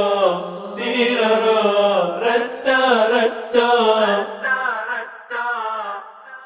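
A man singing the song's wordless chant-like refrain of 'tirara' syllables, fading out near the end.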